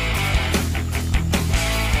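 Background rock music in a heavy-metal style, with guitar and drums keeping a steady beat.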